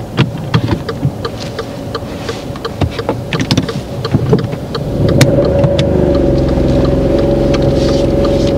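Car engine heard from inside the cabin: scattered light ticks and clicks at first, then about five seconds in the engine revs up and holds under load as the car pulls away uphill from a steep junction.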